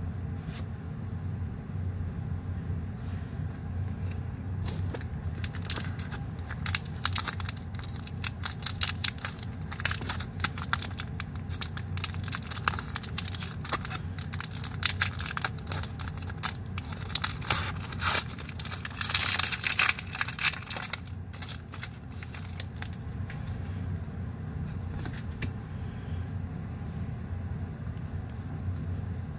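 Foil booster pack wrapper crinkling and crackling as it is worked open by hand, with a louder burst of tearing about two-thirds of the way in. A steady low hum runs underneath.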